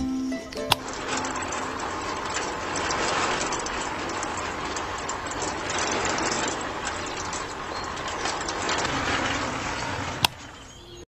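Miniature homemade concrete mixer switched on with a click about a second in, its small electric motor running steadily as the drum turns the grey cement slurry, then switched off with a click near the end.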